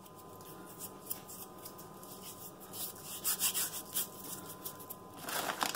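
Hands picking up subway tiles from a loose stack, the tiles scraping and clicking against one another, busiest about three seconds in and again near the end.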